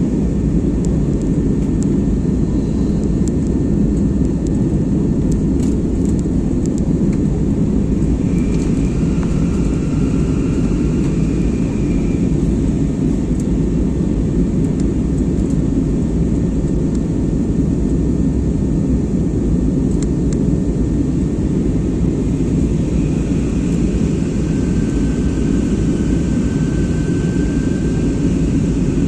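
Steady cabin noise of an Airbus A320neo in its climb after takeoff: a loud, even roar of the engines and the airflow past the fuselage, with a faint high whine drifting in and out.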